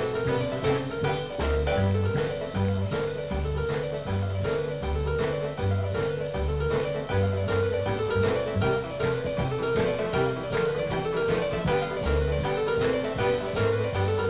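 Jazz piano solo on a Yamaha grand piano in swing style, backed by a rhythm section of bass and drums keeping a steady beat.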